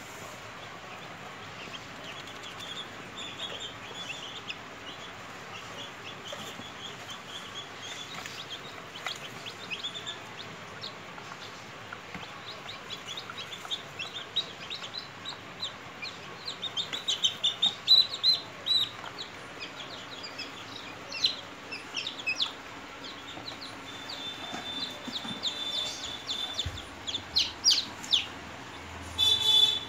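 Newly hatched chicks peeping: short, high-pitched cheeps, scattered at first and then more frequent and louder from about halfway through. The loudest calls come near the end, as the chicks are picked up by hand.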